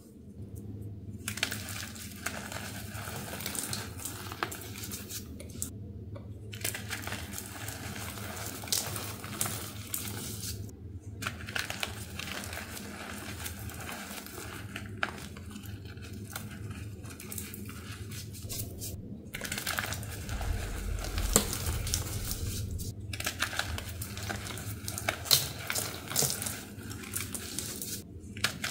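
A crunchy, powdery reform block made with fizzy water being crushed by hand: a dense run of crunching and crackling that stops briefly every few seconds.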